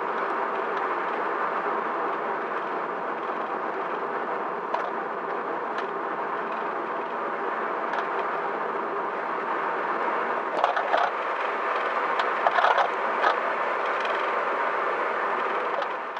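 A car on the move, with steady road and tyre noise and scattered sharp knocks and creaks, bunched most densely a little after ten seconds and again around twelve to thirteen seconds. The knocks are the abnormal noise from DIY-fitted coilovers set to their lowest ride height.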